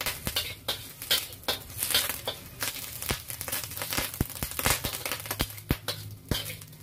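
Metal spatula scraping and knocking against a stainless steel wok while stir-frying garlic and shredded food in a little oil, with a light sizzle under the scraping.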